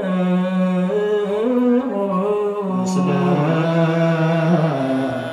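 Men chanting an Ethiopian Orthodox liturgical hymn in Ge'ez: slow, long-held notes that step up and down between a few pitches.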